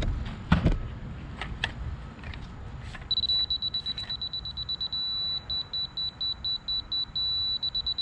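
Laser grade-rod receiver beeping at a single high pitch: rapid pulsed beeps as it is slid along the rod to find the rotating laser's beam, broken by steady held tones, which signal that it sits on the beam (on grade). The beeping starts about three seconds in, after a few clicks and knocks of the rod being handled.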